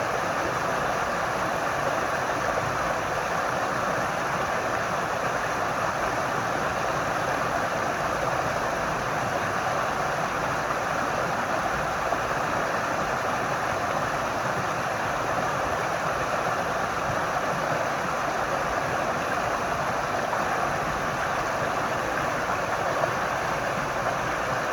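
Flowing water rushing in a steady, unbroken stream of noise, with no rise and fall of waves.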